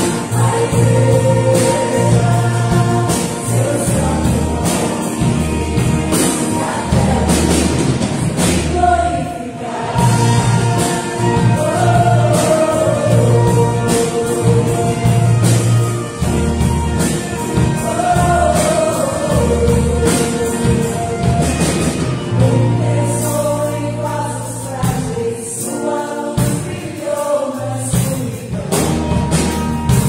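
Live Christian worship song: a choir of mostly women's voices singing with electric bass, drum kit and keyboard. The bass drops out briefly about three-quarters of the way through.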